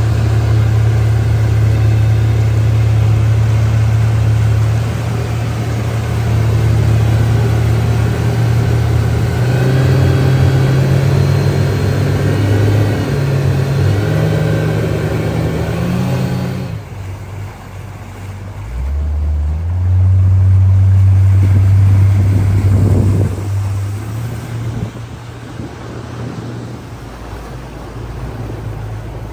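Yamaha 115 outboard motor running at speed with water rushing along the hull, its hum stepping up in pitch now and then. A little over halfway the sound drops suddenly, swells again for a few seconds, then settles quieter near the end.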